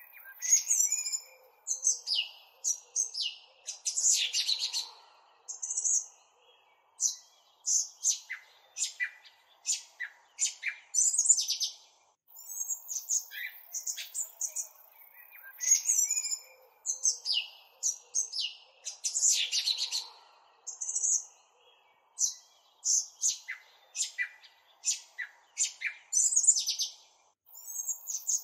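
Several songbirds chirping and calling in quick, short, high notes and trills. The same passage of birdsong seems to repeat after about 15 seconds, as a looped background recording would.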